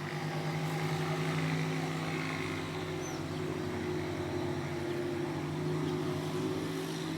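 Steady low engine-like drone, unchanging in pitch, with a few faint high bird chirps over it.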